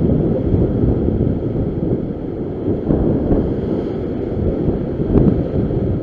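Strong sea wind buffeting the microphone over the rush of surf breaking and washing over the rock ledge, a steady low noise that swells slightly a few times.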